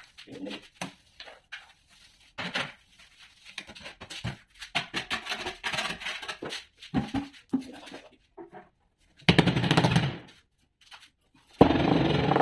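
Scattered scraping and knocking on the countertop. Then a loud power tool runs in a burst of about a second, stops, and starts again near the end, running steadily.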